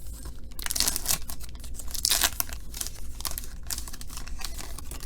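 A foil trading-card pack wrapper being torn open and crinkled, in irregular rustling, crackling strokes.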